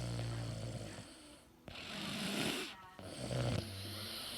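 Snoring: a rattling snore at the start, an airy breath out around two seconds in, then a second, shorter rattling snore about three and a half seconds in.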